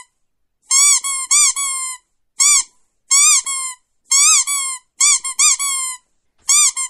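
Repeated high squeaky chirps, each rising and falling in pitch, in quick runs of two or three with dead silence between: an edited-in sound track rather than sound from the scene.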